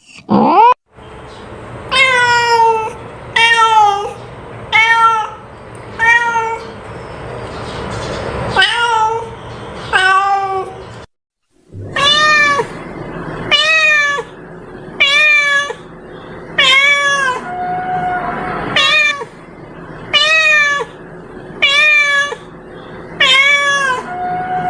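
Domestic cat meowing over and over, about one meow every second or so, each rising and falling in pitch, with a brief break about halfway through.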